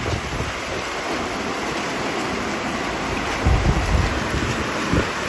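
Steady rush of heavy rain, with wind buffeting the microphone in low rumbles, strongest about three and a half seconds in.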